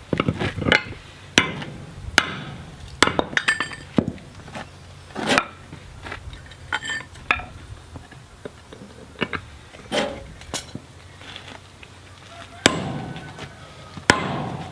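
Hammer blows driving a steel drift through the square hardie hole of a hot striking anvil: about a dozen sharp, unevenly spaced strikes with metallic clinks and brief ringing.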